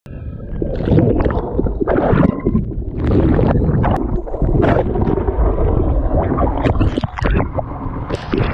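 Rough, gusting noise of water and wind buffeting an action-camera microphone, with irregular surges and crackles throughout.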